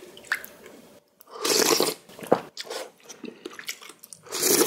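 Close-miked eating of spicy ramen: chewing and small mouth clicks, with two louder hissing slurps, about a second in and near the end, as broth is taken from a wooden spoon.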